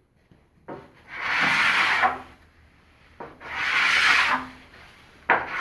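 Two long rubbing strokes across the paraffin-waxed table top, each about a second and a half and starting with a light knock, as the wax is worked into the surface.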